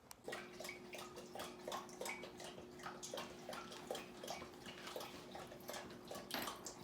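Water splashing and dripping in many short, irregular little splashes, over a faint steady hum.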